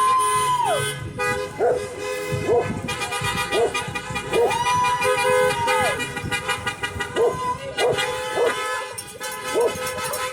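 Car horns honking from passing cars, including two long held honks, while a dog barks repeatedly, about once a second.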